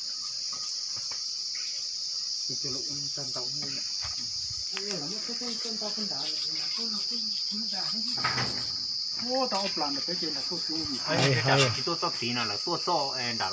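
A steady, high-pitched chorus of insects droning without a break. Over it, people talk in low voices, louder near the end.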